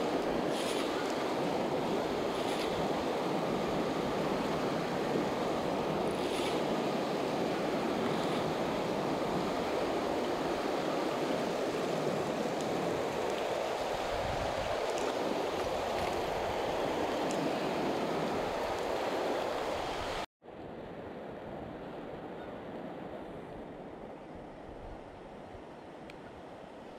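River water rushing steadily over a shallow, rocky riffle. About twenty seconds in it cuts off abruptly, then resumes as a quieter, gentler flow.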